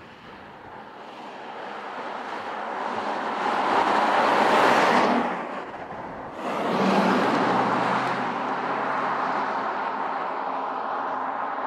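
A 2018 Porsche Cayenne Turbo with a twin-turbo V8 drives past on asphalt, its engine and tyre noise swelling to a peak about four to five seconds in. The sound then breaks off abruptly and comes back as a steady run for the rest of the stretch.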